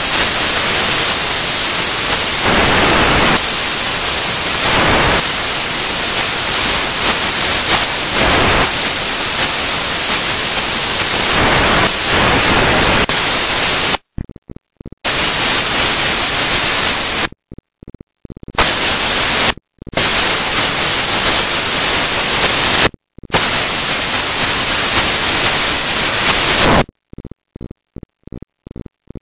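Loud, steady static hiss like white noise, cut by several sudden dropouts to silence from about halfway through.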